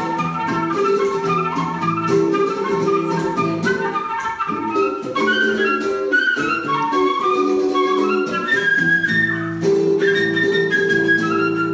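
Live duo: a woodwind plays a moving melody over chords on a hollow-body electric guitar played through a small amp.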